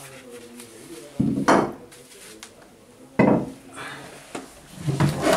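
Steel parts clanking as they are handled and set down on a hard stone floor: two loud clatters about a second and three seconds in, and a smaller one near the end.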